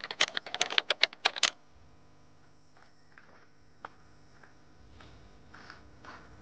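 Keyboard typing clicks, a rapid run of about a dozen keystrokes in the first second and a half. After that only a few faint, scattered clicks sound over a low background.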